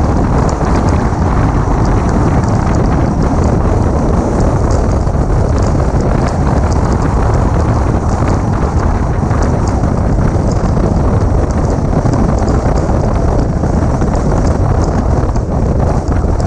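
Steady wind rush over the outside, bonnet-mounted camera's microphone of a 2006 Mini Cooper S on the move, with the car's running noise underneath.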